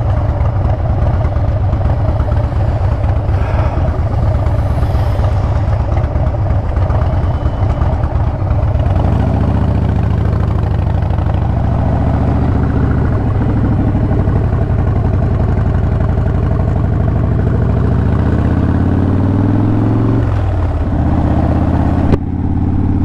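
Harley-Davidson motorcycle engine running as the bike is ridden. About nine seconds in it settles into a steadier, lower beat; near the end its pitch climbs and then drops off sharply.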